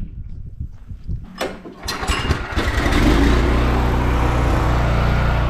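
Gas-engine pressure washer starting up after a few knocks, about two and a half seconds in, then running steadily under a broad hiss of spray.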